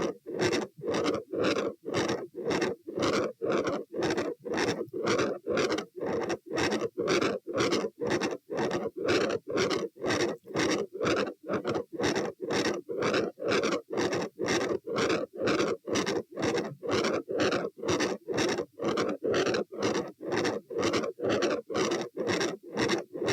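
Heart sounds heard through a stethoscope at the aortic area: a rough, continuous 'machinery' murmur that rises and falls in an even rhythm with each heartbeat, with only brief gaps. It is the kind of murmur typical of a patent ductus arteriosus.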